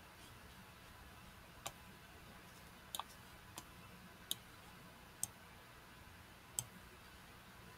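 Computer mouse clicking: about six sharp, separate clicks a second or so apart, one of them a quick double click.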